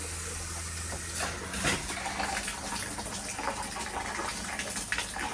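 Water running from a camper's shower in a steady rush, with a few small knocks. A low hum underneath stops about a second in.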